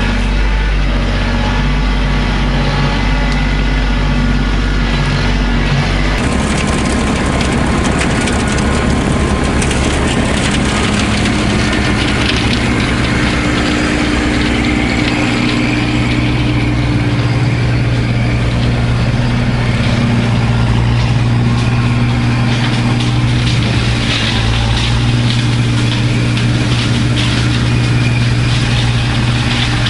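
An engine running steadily and loudly, with an abrupt change in the sound about six seconds in.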